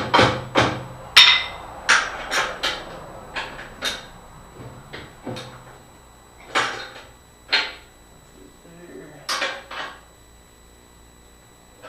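Metal tools striking and clanking on steel, sharp strikes with a short metallic ring: quick and close together at first, then fewer and further apart, the last about ten seconds in.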